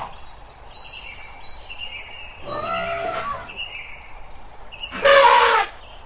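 Elephant trumpeting: two calls, a softer one about two and a half seconds in and a loud, brief one at about five seconds. Faint short high chirps sound in between.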